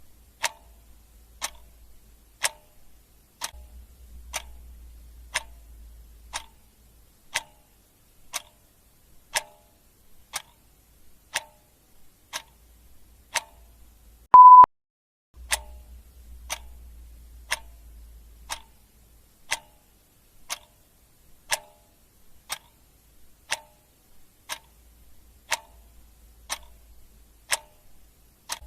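Clock ticking steadily about once a second. About halfway through, a single short electronic beep sounds, louder than the ticks.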